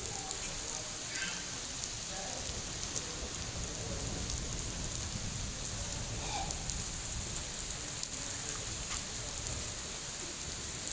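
Steady rain falling on a flooded brick-paved yard and garden plants, with many separate drop hits.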